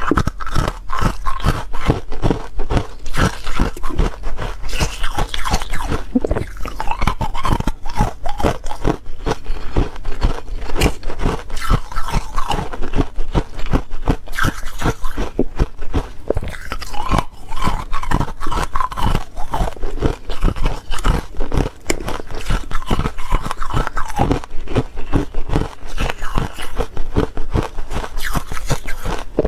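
A person biting and chewing buckwheat ice, with a rapid, continuous run of crisp crunches.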